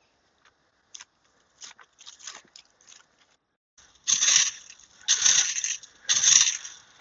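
Faint scattered clicks and rustles, then three loud crunching noises about a second apart, each lasting about half a second.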